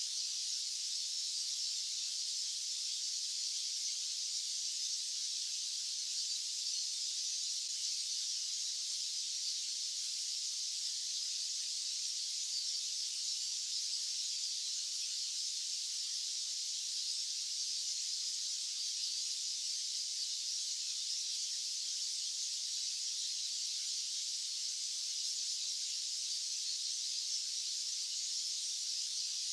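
Steady white-noise hiss, high-pitched and even, with no low rumble and no change in level.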